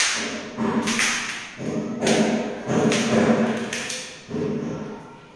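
A series of heavy thumps, about eight at uneven intervals, each ringing briefly after the blow.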